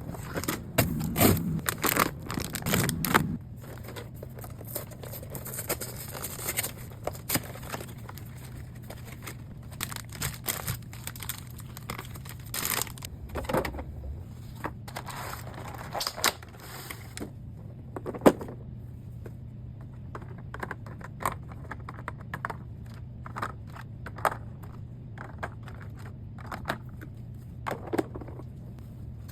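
Groceries being handled and put away: plastic packaging crinkling and rustling, with scattered knocks and clacks of items being set down. The handling is busiest in the first half, with one sharp knock about two-thirds of the way through, over a low steady hum.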